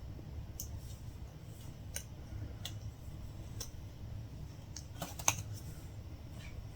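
Latch hook tool working yarn into rug canvas: a handful of small irregular clicks and snips as the latch snaps shut, the strongest about five seconds in, over a low steady hum.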